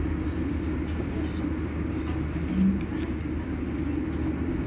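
Irizar ie tram electric bus standing at a stop, humming steadily and low. A brief, louder low tone sounds about two and a half seconds in.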